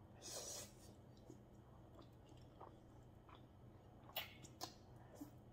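Faint sounds of a person eating spicy instant noodles: a short slurp near the start, then soft chewing and small mouth clicks, with two sharper smacks a little after four seconds in.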